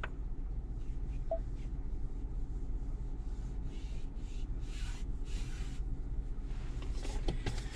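Fingertips pressing and rubbing across a freshly applied, still-wet screen protector on a car's dashboard touchscreen, making a few faint swishes a few seconds in, over a steady low hum.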